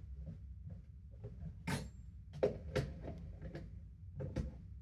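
A handful of irregular light knocks and clicks, the kind made by handling things or bumping an enclosure, over a low steady rumble.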